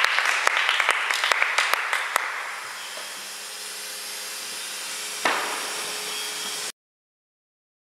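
Small audience applauding, the clapping thinning out and dying away over about two seconds, leaving a steady hiss. A single sharp knock comes a little past five seconds in, and the sound then cuts off abruptly.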